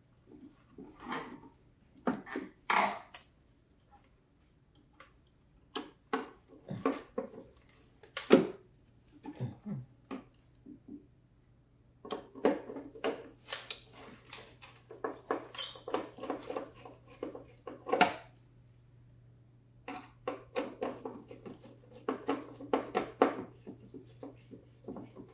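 Irregular metallic clinks, knocks and rattles of hands and tools working inside the battery compartment of a Dräger Fabius GS anesthesia machine while the new battery and its retaining bracket are refitted. They come in bursts with short pauses.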